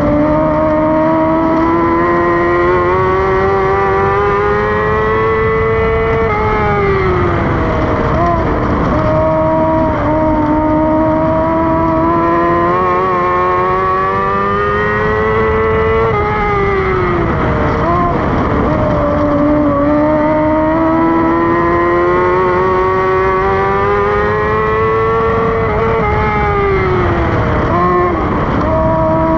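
Dwarf car's motorcycle engine at racing speed, heard on board on a dirt oval. Revs climb steadily down each straight, then drop and waver as the driver lifts through the turns, three times about ten seconds apart.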